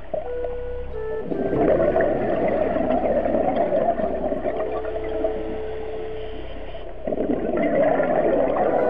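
Scuba regulator breathing heard underwater: a rush of exhaled bubbles starting about a second in and again near the end, with a quieter inhale between carrying a faint steady tone.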